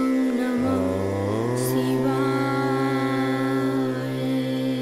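Devotional background music: a mantra-like chant held on long notes over a steady drone, sliding up to a new pitch about a second in.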